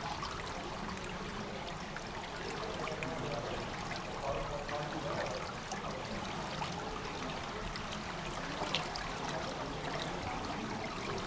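Water trickling steadily into a swimming pool's overflow gutter beneath the slotted edge grating, with many small ticks and drips.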